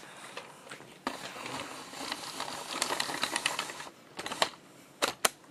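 Handling noise: rustling thick with rapid clicking for about three seconds, then a few separate sharp clicks near the end.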